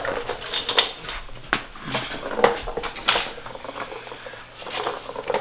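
Hammer blows on a steel chisel cutting into a stuck flywheel bolt: a handful of sharp metallic clinks, spaced irregularly about a second apart, as a groove is chiseled into the bolt head to free it.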